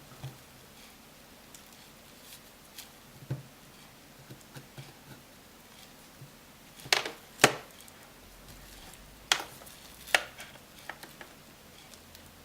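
Small hard clicks and taps of a thin pry tool working an iPhone 5 screen loose from its frame: scattered light ticks at first, then four sharp, louder clicks in the second half.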